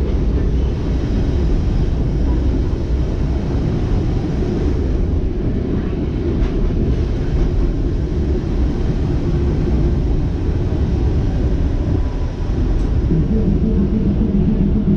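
Vintage wooden-bodied ATM tram running along the street, heard from inside the passenger car: a steady low rumble of wheels on rails and the running gear, with a few faint clicks. Near the end a steady low hum comes in.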